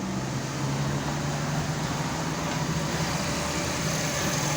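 Steady low hum of a motor vehicle engine over a wash of road traffic noise.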